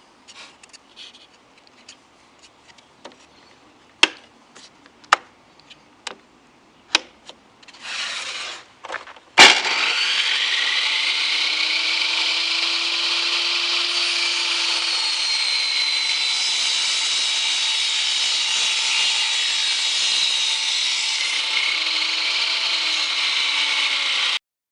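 A few sharp knocks of wood being handled, then, about nine seconds in, a power tool starts abruptly with a loud crack and runs steadily on the wood with a high whine for about fifteen seconds before cutting off sharply.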